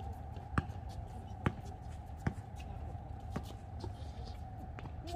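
Basketball dribbled on an outdoor hard court: sharp single bounces about once a second, the later ones fainter, over a steady faint hum.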